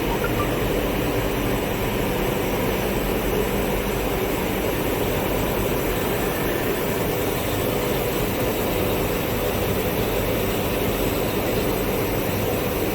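Steady hum and hiss of biscuit production-line machinery running, with no change in level throughout.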